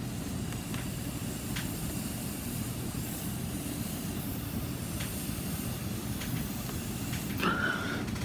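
Breath blown steadily through a long thin squeeze-bottle tube to push wet alcohol ink across photo paper, a continuous airy hiss. A brief higher-pitched sound comes near the end.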